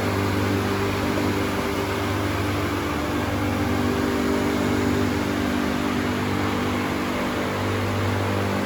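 Bottero Variant 810BCS vertical glass edging machine running, its spindle motors giving a steady hum under an even hiss.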